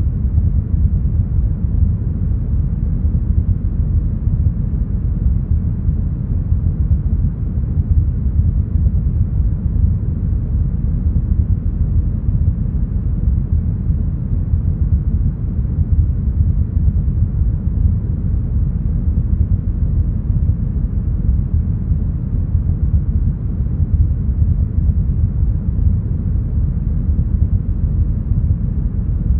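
Deep, smoothed brown noise: a steady, even noise with its weight in the low bass, fading off toward the middle and with no highs at all, unchanging throughout.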